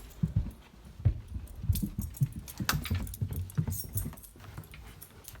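Footsteps climbing stairs: an uneven run of dull thumps, about three or four a second, with sharper clicks among them.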